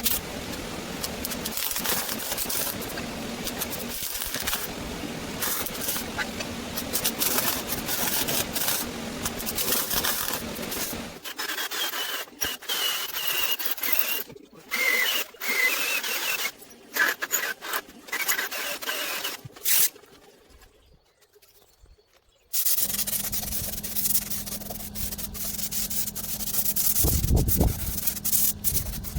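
Abrasive rubbing noise of workshop tool work on steel, cut together from short timelapse clips, so it jumps abruptly from one section to the next. There are about two seconds of near silence roughly two-thirds of the way through.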